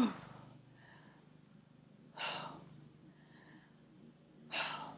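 A woman's short, forceful exhales, three of them about two seconds apart, one with each kneeling dumbbell chop across the body.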